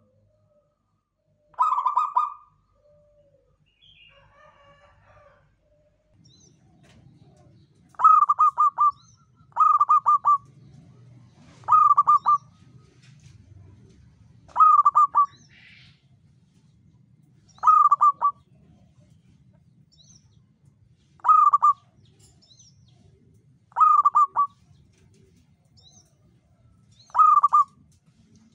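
Caged zebra doves (perkutut) cooing: short bursts of rapid, stuttering coos, one about two seconds in, then, after a pause, a steady run of bursts every two to three seconds. A faint low rumble sits underneath from about six seconds in.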